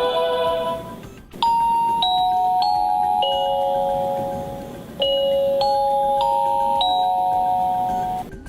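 Honeywell RCWL251A Decor wireless door chime playing one of its selectable chime tunes: a previous chime rings out over the first second, then two four-note phrases of ringing tones follow, the notes struck about half a second apart and left to sound on together.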